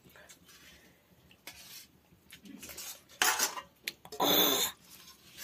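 Metal spoon scraping and clinking on a steel plate while rice is scooped up: a few soft scrapes, then two louder ones about three and four seconds in.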